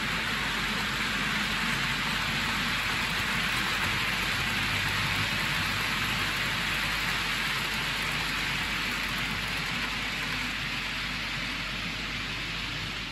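OO gauge model freight train of Cavalex TEA oil tank wagons and flat wagons rolling along the layout's track: a steady rushing rattle of small metal wheels on the rails, easing slightly near the end as the last wagons pass.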